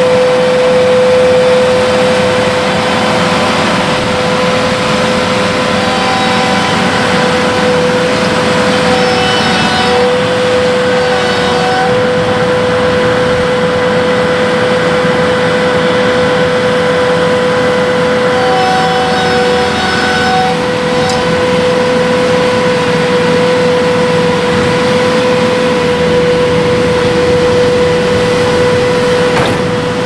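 Engine of a small tracked biomass harvester running steadily with a strong, steady whine while its tipping bin is lowered after dumping a load and the machine moves off. A higher whine joins in twice, from about six seconds in and again around eighteen seconds.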